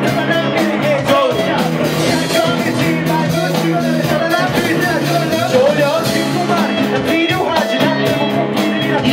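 Live rock band of drums, electric guitars, bass and keyboard playing, with a male vocalist rapping over it.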